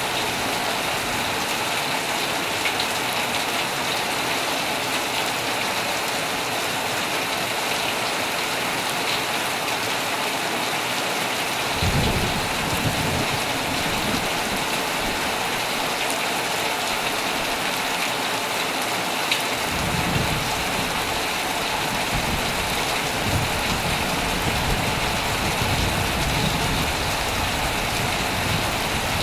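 Heavy rain falling steadily on a tent, with low rolls of thunder coming in about 12 seconds in and again from about 20 seconds in.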